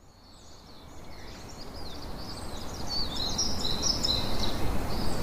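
Wild birds chirping and twittering in quick high-pitched calls over a steady low rumbling noise, the whole fading up from silence over the first three seconds.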